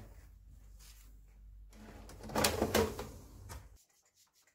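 Nested plastic basins being handled in a pull-out kitchen drawer, with a couple of loud knocks about two and a half seconds in; the sound stops abruptly near the end.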